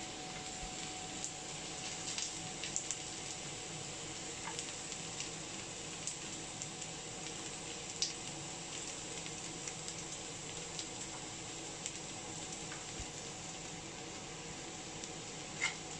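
Okra and onions frying in oil in a pan, a steady sizzle, with scattered small clicks of a knife cutting garlic over the pan.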